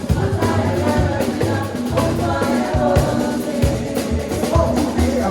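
Gospel music played live by a band with drum kit and bass, with a group of singers singing together over it.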